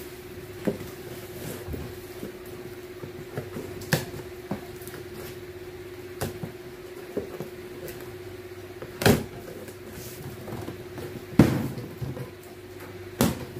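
Cardboard shipping box being cut and opened by hand: scissors snipping plastic packing straps and tape, and cardboard flaps scraping and knocking. There are scattered sharp clacks, the loudest about nine and eleven seconds in, over a steady low hum.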